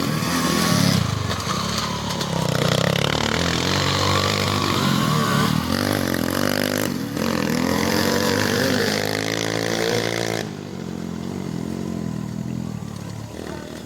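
Engines revving, their pitch rising and falling, until about ten seconds in, then dropping to a quieter running sound.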